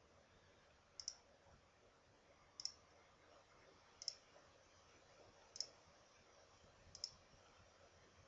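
Computer mouse clicks, five sharp single clicks about one every second and a half, stepping a chess game forward move by move. Faint room tone between them.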